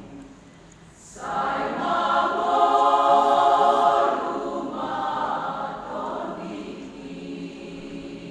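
Choir singing full voice: the choir comes in strongly about a second in, swells, then tapers off toward the end.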